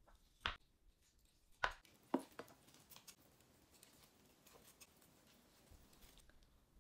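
A few sharp clicks and taps of eating utensils against tableware, most within the first three seconds, then only faint small ticks.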